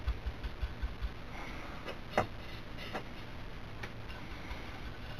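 Faint scattered clicks and taps of a small paintbrush working dry pigment into a plastic model tank's drive sprocket, which is loose and unglued, over a steady low hiss. A few sharp clicks stand out about two to four seconds in.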